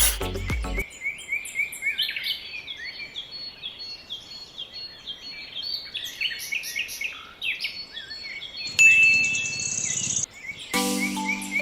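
Small birds chirping, many short, quick chirps overlapping. Background music ends just under a second in and comes back near the end, and a louder drawn-out sound comes in about nine seconds in.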